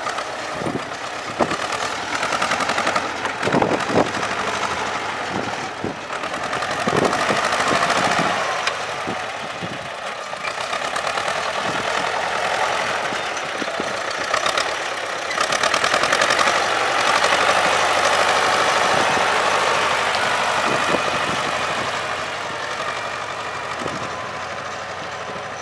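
T-25 tractor's two-cylinder air-cooled diesel engine running as the tractor drives by over snow, growing louder in the middle and easing as it moves away. Irregular knocks sound over the engine during the first ten seconds or so.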